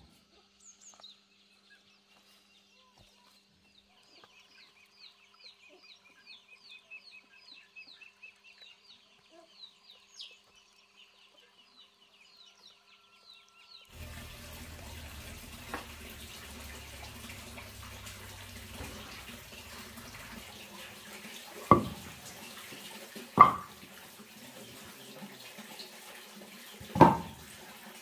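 Birds chirping faintly in quick, repeated short notes. About halfway the sound changes suddenly to water running steadily, with three loud knocks near the end.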